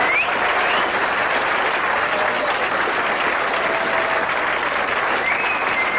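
Studio audience applauding steadily, with a few whistles rising and falling above the clapping, as the song's last note dies away at the start.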